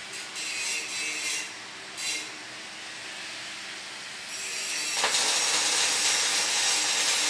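Robotic wire-fed (MIG) welding arc strikes about five seconds in and runs as a steady, loud hiss. Before that there are a few brief hissing bursts while the robot arm brings the torch into place.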